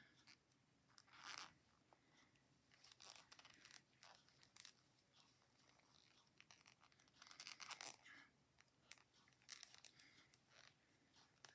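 Faint, irregular clicks and rustles of knitting needles and yarn being handled while knitting stitches two together.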